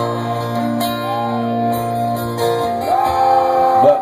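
Live band's guitars playing a slow, sustained accompaniment, held notes with some bending and sliding up and down in pitch, under a steady low note that drops out a little past halfway.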